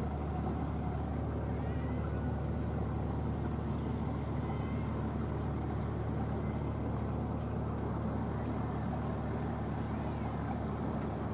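A boat engine running steadily nearby, a low, even drone.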